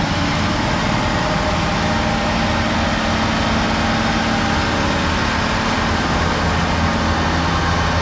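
Large diesel engine of heavy earthmoving equipment running steadily at an even speed.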